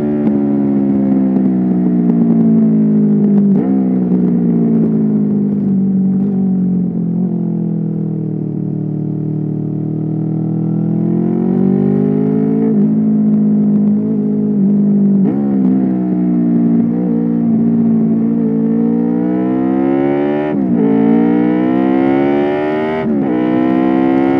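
Honda VFR800's V4 engine heard from the rider's seat while riding. Its pitch sinks slowly over the first several seconds as the throttle eases, then climbs again, and near the end it twice rises and drops sharply, as at gear changes.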